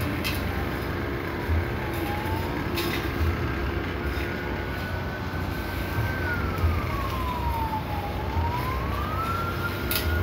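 A siren wailing in slow sweeps: a single tone falls, rises and holds, then falls and rises again, over a steady low rumble.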